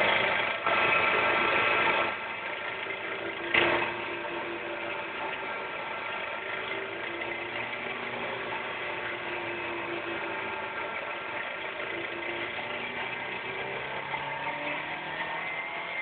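Mazda Miata 1.6-litre B6 four-cylinder engine running under light load in gear, heard through a listening hose held against the engine block, checked for a possible rod knock. A loud rushing noise fills the first two seconds, a single sharp thump comes about three and a half seconds in, and the engine note rises slightly near the end.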